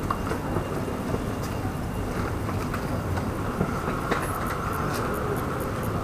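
Hero Honda Karizma motorcycle's single-cylinder engine idling steadily, with a few faint clicks.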